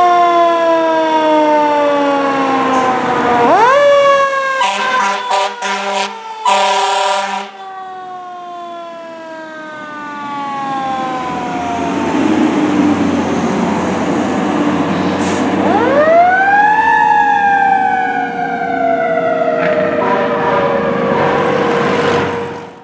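Fire rescue truck's siren winding up sharply twice, each time dying away slowly, with a quick series of short horn blasts and one longer blast just after the first wind-up. A steady tone hums underneath.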